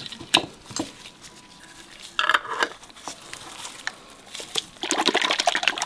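A closed container of salad dressing (water, oil, vinegar, salt and pepper) being handled and shaken. A few separate clicks and knocks come first, then rapid shaking strokes run for about a second near the end.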